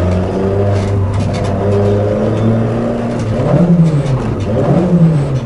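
Peugeot 106 Rallye's four-cylinder engine heard from inside the cabin, pulling at a steady pitch. In the second half the revs rise and fall twice as the driver accelerates and lifts off.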